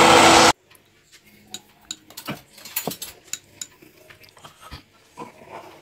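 Immersion blender running in cherry purée, cutting off suddenly about half a second in; then faint clicks and scrapes of a wooden stick stirring a cherry and gelatin mixture in a steel pot.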